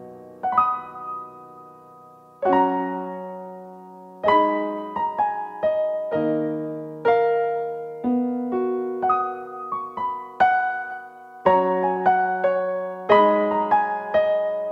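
Slow solo piano music: single notes and chords struck a few times a second, each ringing on and fading.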